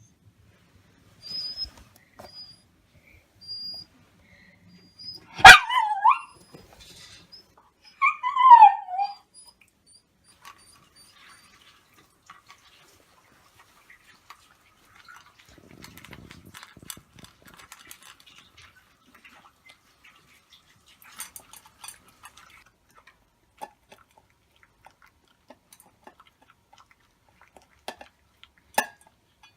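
Black Shiba Inu whining and crying while waiting for its food. Thin high whines come in the first few seconds. Two loud cries follow, about five and eight seconds in, each falling in pitch. After that there are only faint clicks and shuffling.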